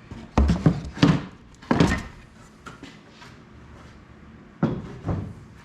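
Wooden beehive box parts knocking and clunking against each other as they are handled: a quick run of about four knocks in the first two seconds, then two more near the end.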